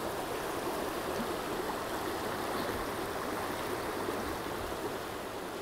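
Shallow river flowing over a rocky bed: a steady rushing and babbling of water.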